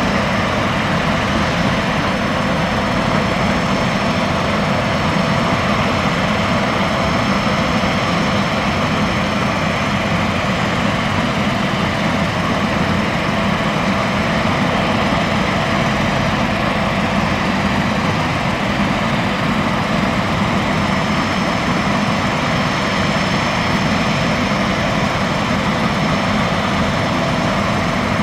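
Jet turbine of a Boeing 767 on the ground running steadily: an even whine over a low rumble that holds unchanged throughout.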